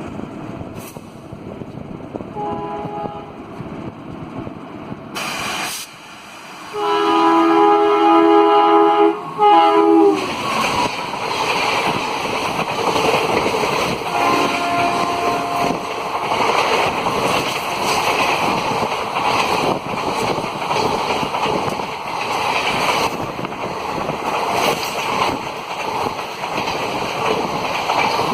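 Rajdhani Express train approaching and passing. A short faint horn sounds about two seconds in, then a loud, long chord from the locomotive's horn about seven seconds in, lasting some three seconds. After that comes the loud, steady noise of the coaches running past, with another brief horn partway through.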